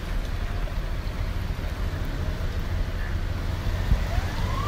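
Steady low rush of flash-flood water across a road, with a single knock about four seconds in. Near the end a police patrol car's siren starts its wail, one tone rising steadily in pitch.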